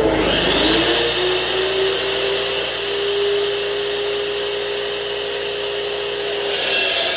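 Cold-cut chop saw motor starting up with a whine that rises over the first second, then running steadily as the blade cuts through steel bar stock. Near the end the whine drops out and the noise turns harsher.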